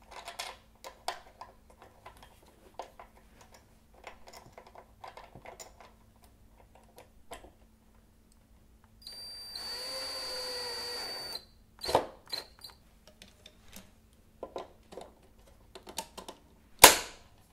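Small parts clicking and rattling as they are handled, then a DeWalt cordless drill driving a screw, running steadily for about two and a half seconds. A sharp knock near the end.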